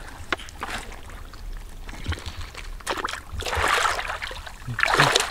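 Hands splashing and churning shallow muddy water: a few small splashes and drips at first, then a spell of louder sloshing about three and a half seconds in, and more near the end.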